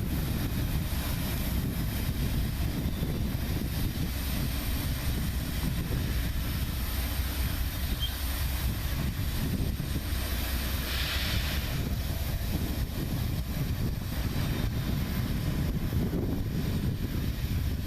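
Freight train running past with a steady low rumble, and wind buffeting the microphone. About eleven seconds in, a higher hiss comes and goes within about a second.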